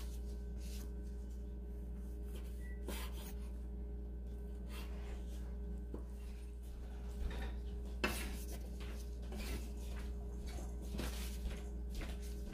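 Knife cutting cooked chicken breast on a cutting board: irregular knocks and scrapes, the loudest about eight seconds in, over a steady low hum.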